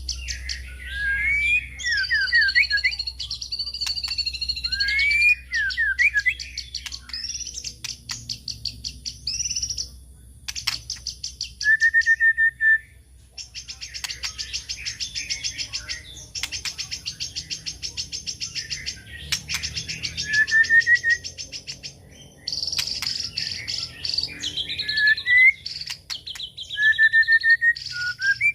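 White-rumped shama (murai batu) singing: long runs of fast, rapidly repeated high chattering notes, broken by short clear whistles and slurred phrases.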